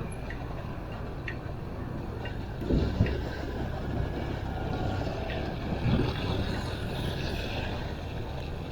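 Low rumble of a vehicle engine, with wind on the microphone and a couple of thumps about three seconds in.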